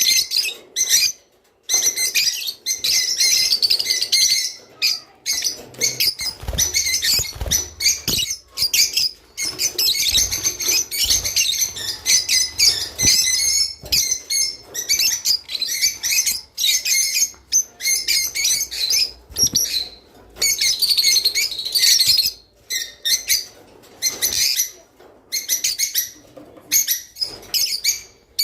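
Rosy-faced lovebirds chirping and chattering in fast runs of short, high chirps with brief pauses between runs: the lively twittering that breeders play to pairs to get them to mate.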